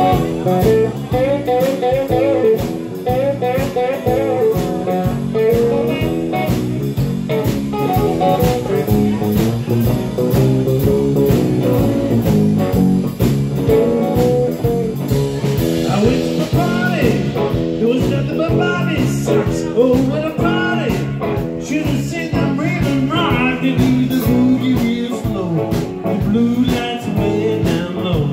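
Live electric blues band playing a boogie: electric guitars and electric bass over a drum kit keeping a steady beat. A higher, bending lead line comes in over it about halfway through.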